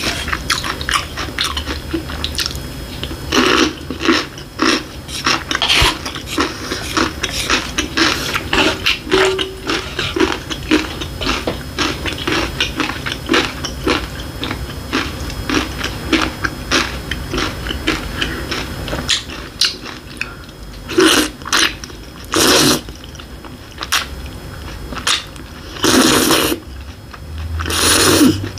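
Close-miked mouth sounds of a person eating: rapid wet chewing and lip smacking. Several longer, louder slurps of tomato ramen noodles come in the last several seconds.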